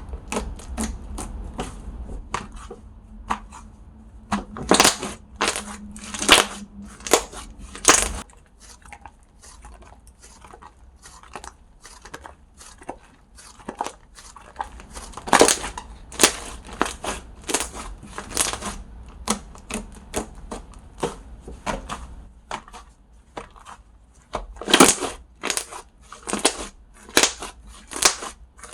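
Slime being squished and pressed by hand close to the microphone, giving many sharp, irregular clicks and pops. A faint low hum underneath stops about eight seconds in.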